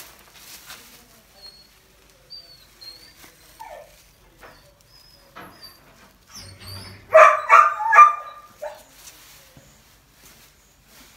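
A dog barks three times in quick succession about seven seconds in, the loudest sound here. Before that there are only faint scattered taps and rustles, and a few thin high chirps.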